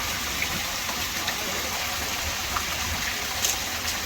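Steady hiss of rainfall, with a few faint ticks of drops landing close by.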